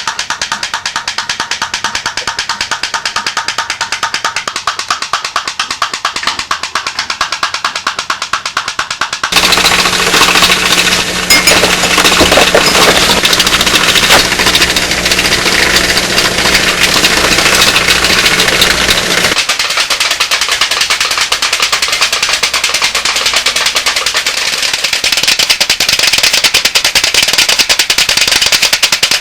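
Toy pop-pop boats running: the steam engine's diaphragm or tubes pop in a fast, even rattle. About nine seconds in, the sound jumps to a louder boat with a steady low hum under the popping, and about ten seconds later it changes again to a lighter popping.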